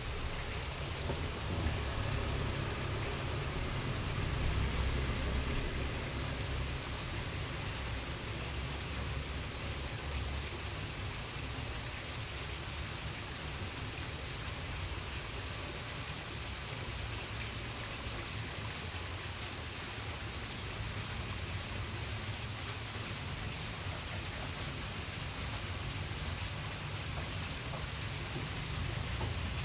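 Steady rushing noise of water, even and unbroken, with a low rumble that is heavier over the first ten seconds or so.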